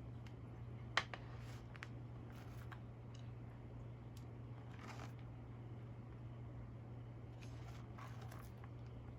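Scattered small clicks, taps and rustles of hands handling things in a kitchen, over a steady low hum, with one sharper click about a second in.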